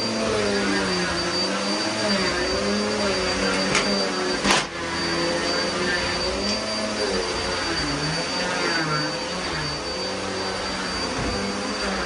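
Upright commercial vacuum cleaner running on carpet, its motor hum wavering up and down in pitch as the nozzle is pushed back and forth, over a steady high whine. A single sharp knock about four and a half seconds in.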